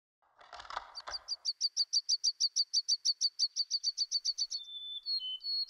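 A small songbird sings a long, rapid trill of high repeated chirps, about nine a second, then gives a few thin whistled notes that step down in pitch. A brief soft rustling noise comes just before the song.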